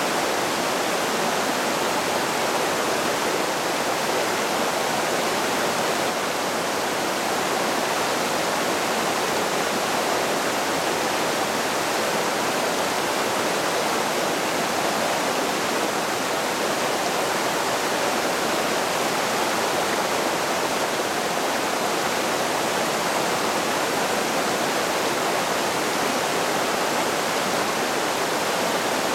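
Fast mountain creek running over rocks and boulders in shallow rapids: a steady rush of white water with no breaks.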